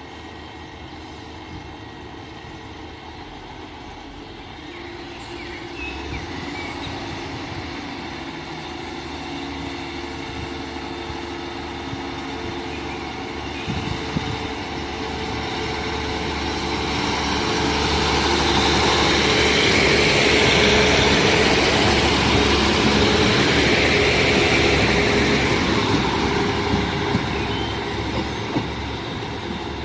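Class 150 Sprinter diesel multiple unit pulling away under power, its underfloor Cummins diesel engines running. The sound grows louder as the train approaches and passes close by, is loudest about two-thirds of the way through, then fades as it moves off. A few wheel clicks come as it passes.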